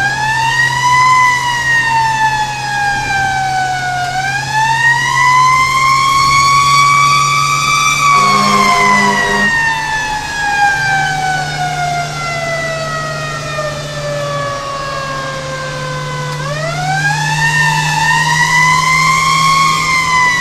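Fire engine siren wailing in long sweeps. It winds up fast, dips, climbs again, then falls slowly for about eight seconds before winding up once more near the end. A steady low engine drone runs underneath, and a brief lower pulsing tone sounds about eight seconds in.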